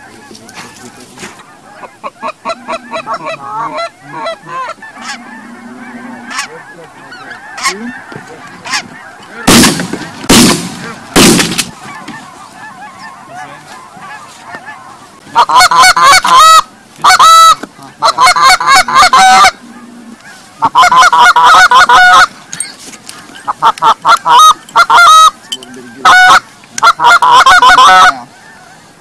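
Goose honking: a few faint honks, then three loud shotgun shots about a second apart, then from about halfway on long runs of very loud, close goose honks in rapid series.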